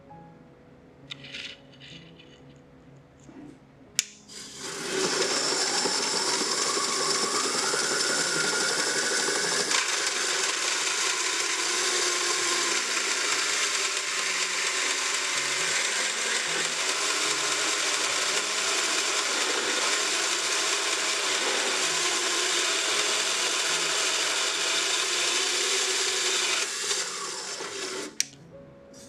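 A 3D-printed band saw switched on with a click about four seconds in, its whine rising over the next few seconds as it comes up to speed, then running steadily while the blade cuts a small metal tube. It stops shortly before the end.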